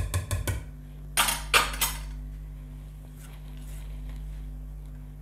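Wire whisk clinking against a metal saucepan, with a cluster of sharp clinks and knocks between one and two seconds in. This is followed by soft stirring of thick lemon curd with a silicone spatula over a steady low hum.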